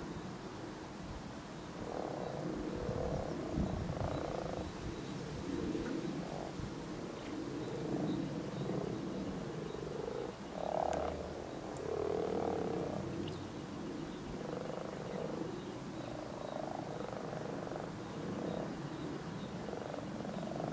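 Breeding chorus of many European common frogs (Rana temporaria): males croaking continuously, their low calls overlapping with no pause.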